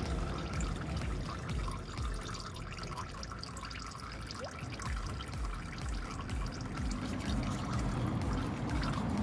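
Thin stream of old engine oil trickling steadily from around the spin-on oil filter of an Audi Q2 1.4 TFSI, draining during an oil change.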